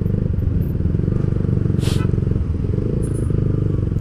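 Yamaha Vixion's single-cylinder four-stroke engine running steadily at low revs while the motorcycle creeps through heavy traffic. There is a brief hiss about two seconds in.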